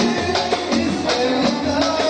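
Live Saudi party music: a band of hand-drum percussion, keyboard and oud playing a steady, driving rhythm, with a voice singing along.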